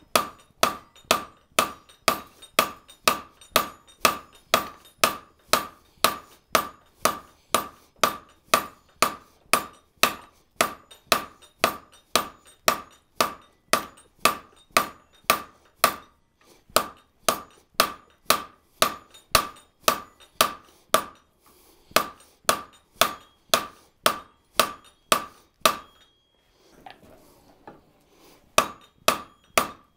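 Hand hammer striking a hot steel bar on the horn of an anvil, drawing it out: steady blows about two a second, each ringing. The blows stop for about two seconds near the end, then resume.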